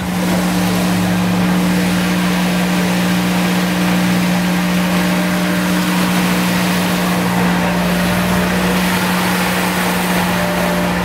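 Vehicle engine running steadily: a loud, even drone with a strong low hum that does not change in pitch.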